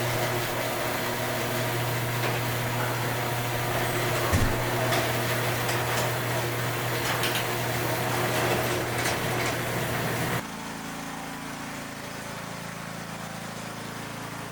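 Steady mechanical hum with a few light clicks; about ten seconds in it cuts abruptly to a quieter, lower steady hum.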